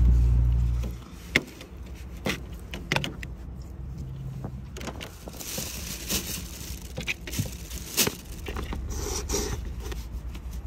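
A low rumble that stops about a second in, then scattered light clicks, knocks and scrapes from a knife and raw chicken being handled on a plastic cutting board. A plastic bag rustles around five to six seconds in.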